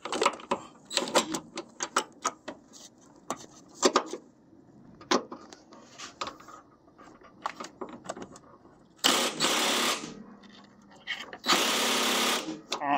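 Hand tools working on a car engine: a run of quick metal clicks and taps, like a ratchet and sockets on bolts. Later come two bursts of hissing noise of about a second each, the loudest sounds here.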